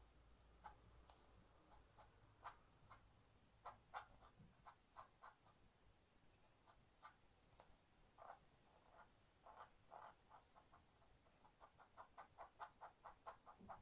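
Dip pen nib scratching on paper while inking in a small black shape: faint, short, irregular scratches that come quickly, several a second, near the end.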